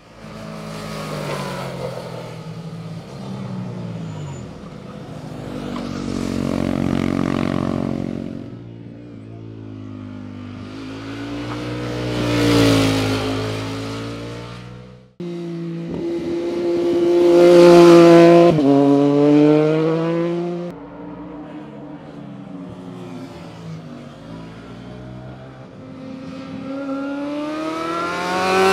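Sport motorcycles passing one after another, each engine climbing in pitch under throttle and then dropping away as it goes by. There are several passes, with a sudden break about halfway through and another bike coming up loud near the end.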